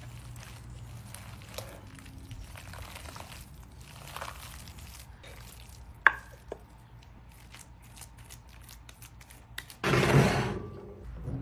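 Wet squelching and rustling of shredded chicken being mixed by hand with buffalo sauce and dressing in a glass bowl, with a sharp knock about six seconds in as the mixture is spooned out. Near the end, a louder rough scrape lasting about a second.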